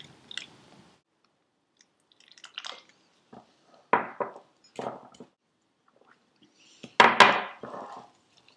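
Silicone spatula stirring and scraping a damp, crumbly mix of ground nuts, wafer crumbs and cocoa against a glass bowl as orange juice is worked in. It comes as a series of short scrapes, the loudest about seven seconds in.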